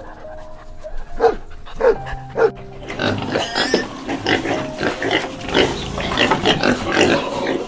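Pigs calling: three short separate calls about a second in, then a dense run of many overlapping calls from about three seconds in.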